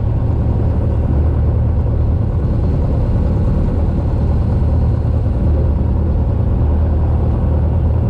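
Cessna 172's piston engine and propeller running steadily on the ground after landing, a constant low drone heard from inside the cockpit.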